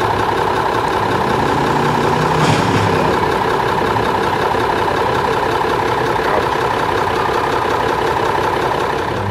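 A pulling truck's engine running loud and steady at high revs, with a short crack about two and a half seconds in.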